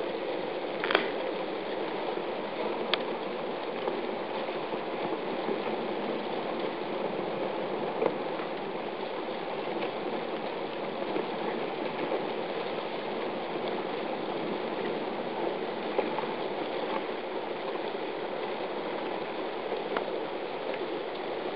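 River ice breaking up and drifting: a steady crackling, grinding hiss of ice floes moving against each other, with a handful of sharp cracks, the loudest about a second in.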